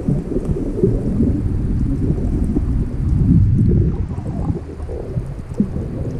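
Muffled low rumble of water moving around a camera filming underwater, with faint scattered high ticks.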